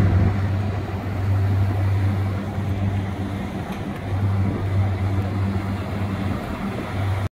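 A steady low engine hum that swells and fades slightly, over outdoor background noise.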